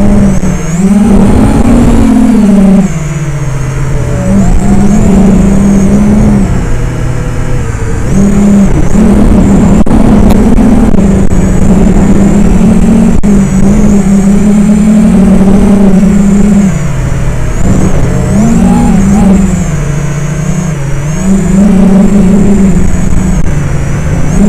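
FPV racing quadcopter's motors and propellers whining, heard from its onboard camera. The pitch rises and falls constantly with the throttle, easing off briefly about three seconds in and again near the end.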